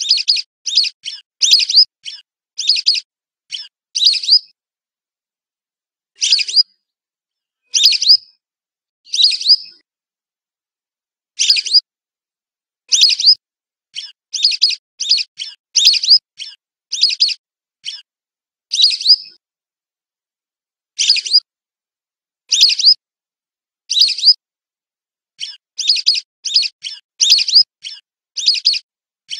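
Whistling duck (belibis) lure calls: short, high whistled calls in quick runs of several, with pauses of a second or two between runs, repeating throughout.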